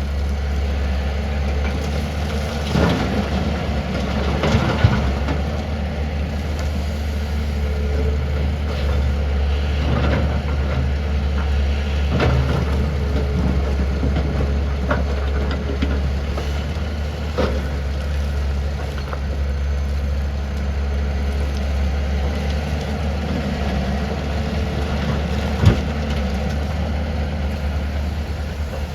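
Tata Hitachi 470 excavator's diesel engine running steadily with a deep hum, with a few sharp knocks from the machine now and then.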